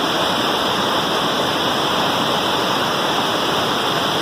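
Waterfall rushing, a loud, steady roar of falling water heard close up.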